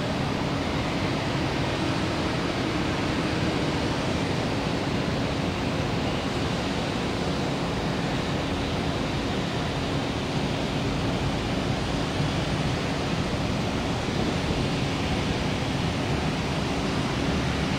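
Airbus A380-800's four Rolls-Royce Trent 900 turbofan engines running at taxi power: a steady jet rush with a constant low hum.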